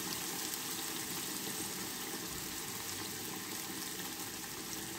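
Mutton karahi curry bubbling and sizzling in its oil in a karahi, a steady crackling hiss.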